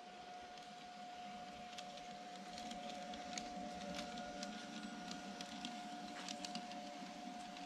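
LGB G-scale electric model locomotive running on garden track: a steady whine from its motor and gearing, with light clicks from the wheels over the rail joints. It grows slowly louder as it comes close.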